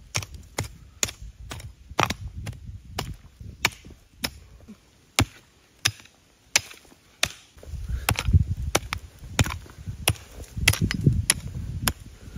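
Blade chopping into wood, repeated sharp strikes at roughly one to two a second, with low rumbling from about eight seconds in.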